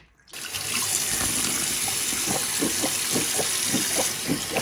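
Water running from a tap into a sink, starting about a third of a second in and running steadily, with irregular splashing over it.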